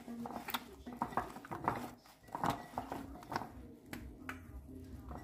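Sliced zucchini being tossed by hand in a glass bowl: scattered soft clicks and taps of the slices and fingers against the glass.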